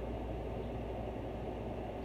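Steady low hum with a light hiss: background room noise, with no distinct sounds in it.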